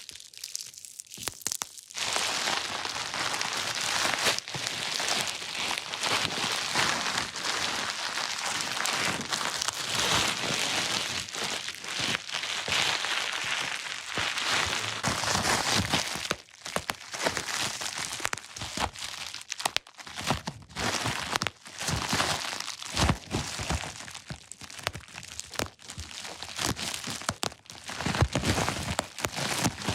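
Crinkly material handled close to the microphone, crinkling and crackling densely and without a break at first. From about halfway on it comes as separate sharp crackles and clicks with short pauses between them.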